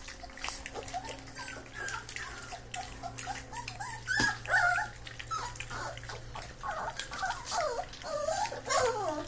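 Three-week-old Fila Brasileiro puppies whimpering and squeaking in many short, high, rising-and-falling cries while they eat raw minced meat, with small clicks of eating among them. The cries are loudest a little after four seconds in and again near the end.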